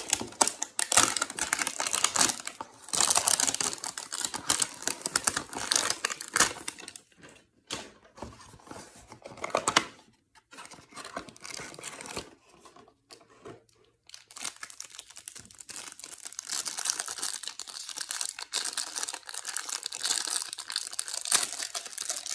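Cardboard and packaging tearing and crinkling as a trading-card hanger box is opened and its cards pulled out. The crackling is dense at first, goes quieter with short gaps midway, then runs steadily again from about two-thirds of the way through.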